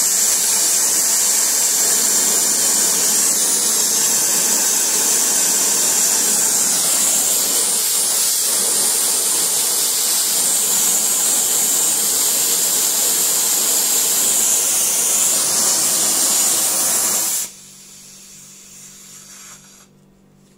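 Oxygen-propane brazing torch flame running as a steady loud hiss while it heats a copper pipe joint to a cherry-red glow for brazing. The flame cuts off abruptly near the end, leaving only a faint hum.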